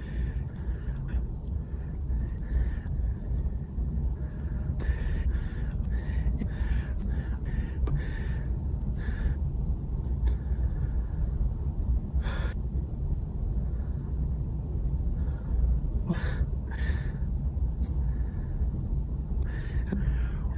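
A man breathing in short, catching breaths and sharp inhales, as if a sneeze were coming, with small mouth clicks in between. A steady low rumble runs underneath. The sharpest intake comes about twelve seconds in.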